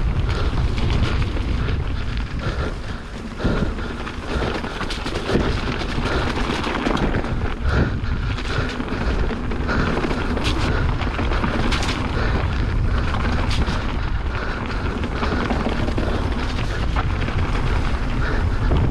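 Wind buffeting the microphone of a mountain bike ridden along a dirt trail, with the bike knocking and rattling over bumps.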